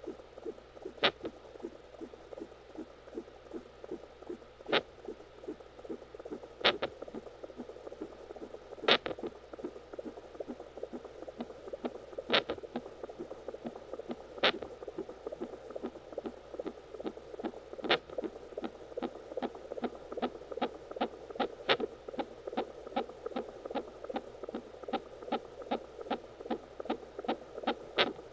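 Fetal heartbeat picked up by a handheld home Doppler: a fast, even pulsing beat, with a sharp little thump every few seconds that is the baby hiccuping inside the womb.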